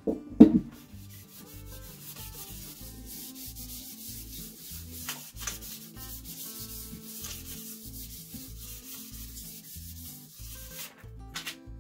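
Paper being rubbed by hand over a transfer on a painted cone, burnishing it down: a steady scratchy rubbing with a few light clicks, and a loud thump about half a second in. Soft background music with a repeating bass line plays underneath.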